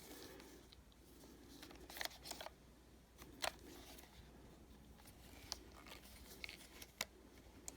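Faint, scattered clicks and taps from a resin ball-jointed doll being handled as its joints are bent and turned.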